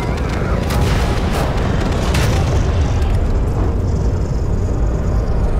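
Film sound effects of explosions and a hovering alien aircraft: a deep, heavy rumble with several blasts in the first two or three seconds, then a high whine joining about four seconds in.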